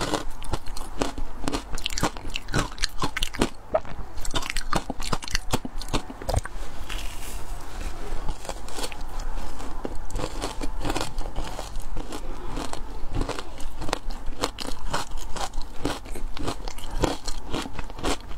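Biting and chewing frozen matcha ice: a dense, irregular run of sharp crunches and crackles as teeth break and grind the ice.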